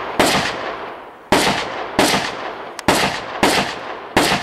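Rifle fired in a string of single shots at steel targets: six sharp cracks in about four seconds, irregularly spaced, each trailing off in a long echo.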